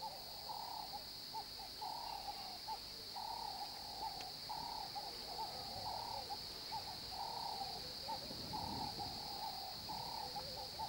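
Faint riverside ambience: a steady high insect drone with short, repeated hooting animal calls, about one or two a second.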